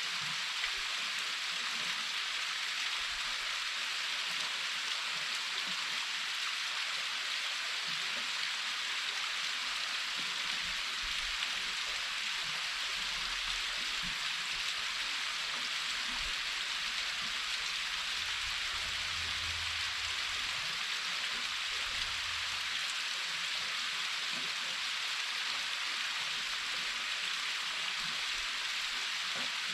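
Waterfall rushing steadily: an even, unbroken hiss of falling water, heard close to the lip where it pours over.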